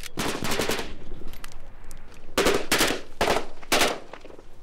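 Automatic rifle fire in rapid bursts: one long burst near the start, then four short bursts in quick succession from about halfway through.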